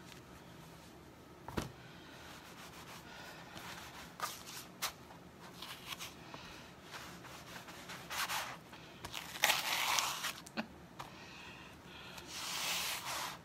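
Hands rubbing a terry towel over a sticky adhesive silk-screen transfer and peeling the towel back off it, a rustling, crackly peel. It is de-tacking the transfer so it is less sticky. A sharp click comes early, and the rustling grows louder in two stretches, once past the middle and again near the end.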